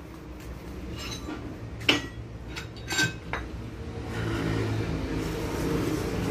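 Steel truck leaf-spring leaves clinking and clanking against each other as they are handled and laid out by hand: about half a dozen sharp metallic hits with a brief ring, the loudest about two seconds in.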